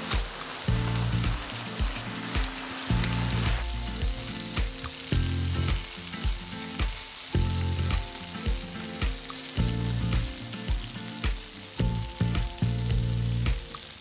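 Thin beef strips sizzling in their soy-and-sugar marinade in a nonstick frying pan as the sauce cooks down to a sticky glaze, with chopsticks stirring and tapping against the pan. The sizzle is heavy at first and lighter after about four seconds, with soft background music underneath.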